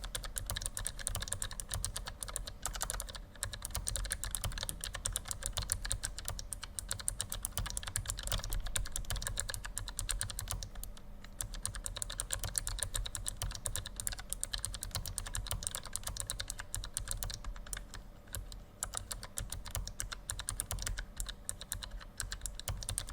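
Continuous typing on a Keychron K1 low-profile mechanical keyboard: rapid, irregular clicks from its tactile clicky switches, where a small click plate strikes the switch housing on every press.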